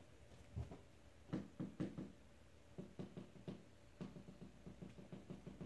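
Soft, irregular knocks and taps, coming quicker and lighter through the second half.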